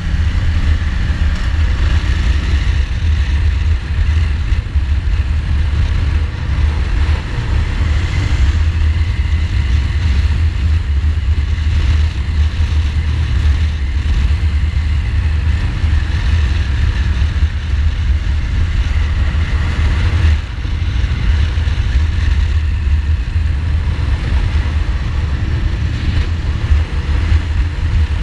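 Ducati Multistrada's L-twin engine running at road speed, heard through a steady low rumble of wind on the microphone, with a brief dip about twenty seconds in.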